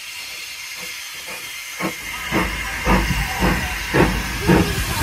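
Steam hissing from the small saddle-tank locomotive Rosyth No. 1 as it runs slowly past with its carriages. From about two seconds in there is a regular beat of knocks, about two a second, as it draws near.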